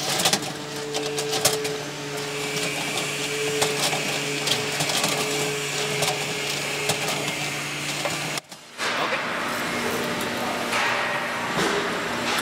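Slat belt conveyor running: a steady gearmotor hum with light clicking and rattling as the slats travel over the track. The sound breaks off for an instant about eight and a half seconds in, then goes on with a slightly different steady hum.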